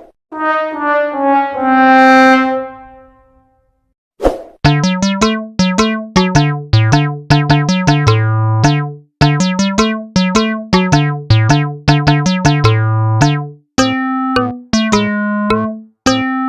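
Comedic synthesizer sound effect: one held note that swells and fades over about three seconds, then, after a short pause, a quick, bouncy electric-keyboard tune over a bass line.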